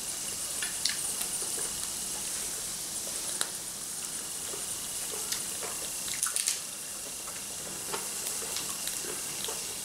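Squid tentacles sizzling on an electric tabletop grill: a steady hiss with scattered small pops and clicks, a short cluster of louder pops about six seconds in.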